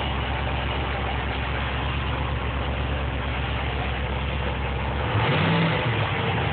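Inboard engine of a sterndrive fishing boat idling steadily, then revved briefly about five seconds in, its pitch rising and falling back.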